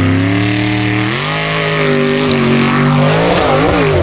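Formula Offroad buggy's engine running hard at high revs. It holds a steady pitch, jumps up about a second in, then revs waver up and down near the end as the buggy claws up a steep dirt bank.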